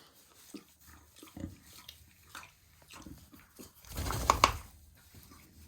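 Kunekune pig making weird wet mouth noises: scattered smacks and clicks, then a louder, rougher stretch with two sharp bursts about four seconds in. The uploader thinks she swallowed a piece of alfalfa and is struggling to bring it back up.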